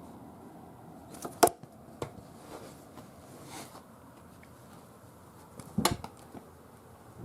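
A few sharp clicks and knocks over a low steady hiss: one loud click about a second and a half in, a few softer ones, and a quick cluster of knocks near six seconds.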